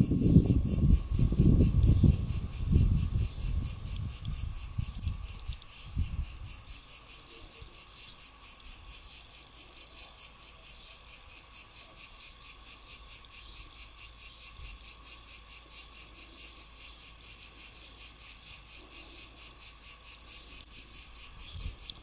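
Cicada singing: a high, buzzing song pulsed in a steady, quick rhythm of several beats a second. A low rumble runs under it for the first few seconds.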